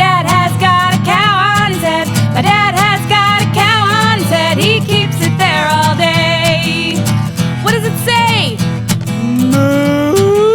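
Music: a song with a solo singing voice over a steady instrumental accompaniment. Near the end the voice slides up into a long held note.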